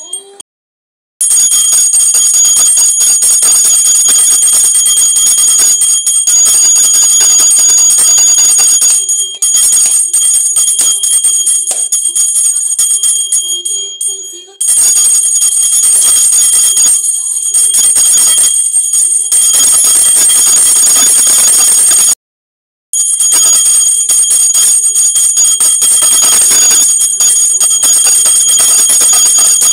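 Puja hand bell (ghanta) rung rapidly and without pause, a dense, loud metallic ringing, as is done while food is offered to the deity (naivedyam). It drops out briefly a little past three-quarters of the way through, then resumes.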